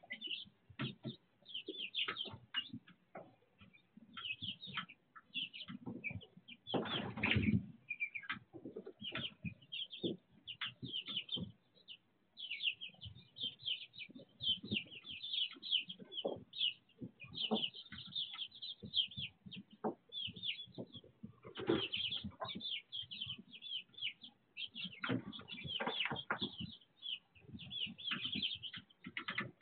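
A brood of young chicks peeping in dense short, high chirps, over rustling and scratching in pine shavings. A louder flurry of wing-flapping and scuffling comes about seven seconds in, and again about 25 seconds in.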